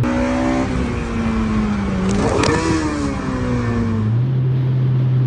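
Volkswagen Golf R's turbocharged four-cylinder engine with an aftermarket turbo-back exhaust, revving high and falling. Its pitch rises briefly about two seconds in, with a click, then drops away and settles into a steady lower hum about four seconds in. This follows a near money-shift from a mistaken gear.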